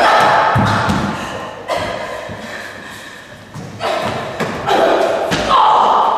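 A staged unarmed fight: a series of about five sudden thuds and slaps from strikes, a kick and footwork on a studio floor, mixed with vocal cries and exertion sounds, each trailing off in the echo of a large bare room.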